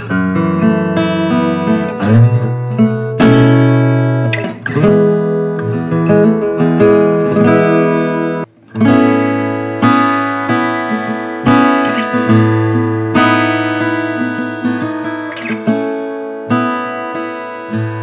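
GWG Guitars 00-size acoustic guitar with a Sitka spruce top and mahogany body, played with a run of picked notes and strummed chords. There is a short gap about halfway through, then a chord rings out and the playing goes on.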